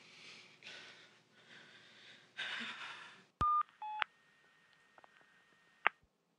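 Two short keypad beeps from a mobile phone being dialled, about half a second apart, followed by a faint steady tone and a single click. Breathy noise comes before the beeps.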